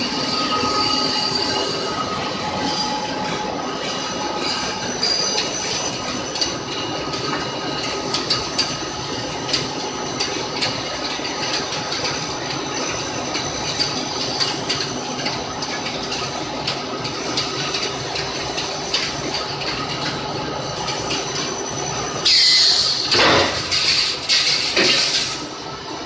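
Aluminium-wire rod breakdown drawing machine with 13 dies running, its take-up spooler winding wire onto a reel: a steady mechanical whine of several fixed tones, with scattered light clicks and rattles. About 22 seconds in, a louder hiss with a falling tone lasts three or four seconds.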